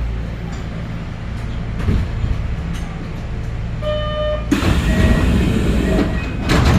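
Kintetsu 6432-series train standing with its equipment humming steadily; about four seconds in the door chime sounds, followed by a loud hiss from the air-operated sliding doors moving, ending in a door thud near the end.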